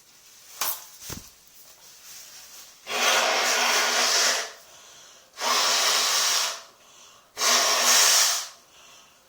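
A person forcing air hard out through the nose and mouth three times, each blast loud, lasting about a second and evenly spaced, in a sneezing fit. A faint click and a short low thud come before the first blast.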